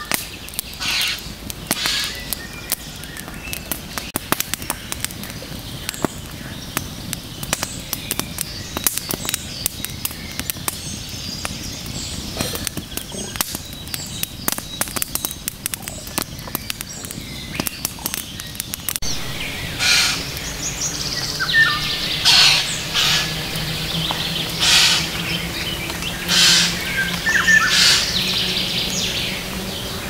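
Wood campfire crackling with many sharp snaps, with birds calling in the background. About two-thirds of the way through, the crackling thins and the birds' chirps become louder, over a low steady hum.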